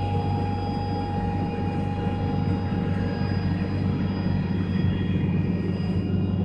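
Atlas Copco oil-free rotary screw air compressor running: a steady drone with a deep hum and a constant whine over it.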